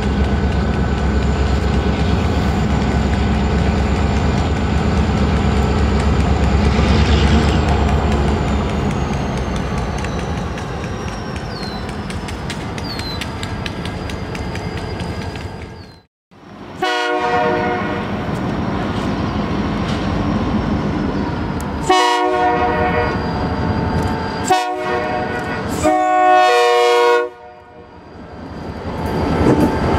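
EMD diesel locomotives led by a GP35 rumbling past at low speed, with a faint high whine slowly falling in pitch. After a cut, the locomotive horn sounds four blasts, the third one short, in the long-long-short-long pattern of a grade-crossing signal.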